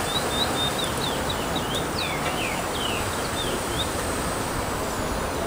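A small bird singing a run of quick, high chirps, many sliding downward, for the first four seconds or so, over a steady rushing background noise.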